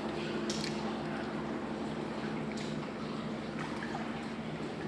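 Steady low mechanical hum with water lapping, and a few light clicks.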